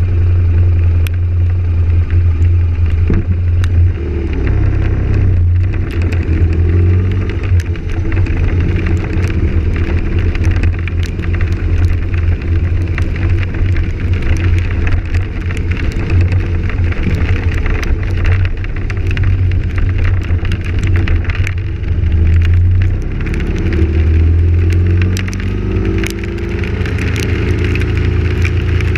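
A GoPro Hero3+ in its housing rattling: rapid, irregular sharp clicks that go on throughout, over a loud steady low drone. The rattle persists even in a different camera and housing.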